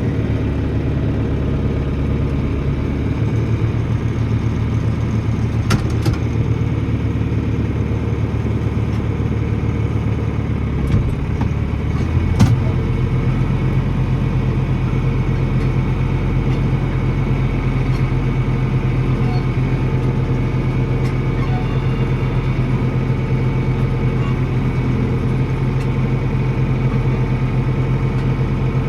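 A vehicle engine running steadily. Its low drone shifts about three seconds in and again about twelve seconds in, with a few light clicks or knocks around six and twelve seconds in.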